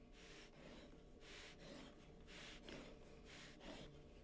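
Faint hiss of a Logan 201 oval and circle cutter's blade cutting through mat board and scoring the backing sheet underneath, in soft swells about once a second.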